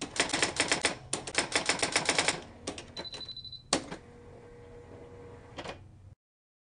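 Typewriter keys clacking in a fast run of typing, about six strikes a second. The keys slow to a few lighter clicks, then a brief high ring sounds, followed by one loud clack. A quieter clack comes near the end.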